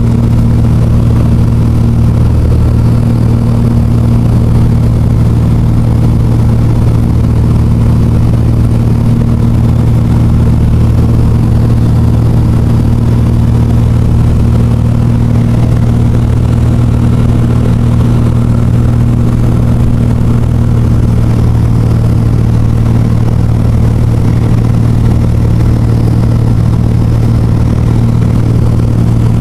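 Steady, loud drone of a small aircraft's engine heard on board in flight, a low, even hum with several steady tones and no change in pitch.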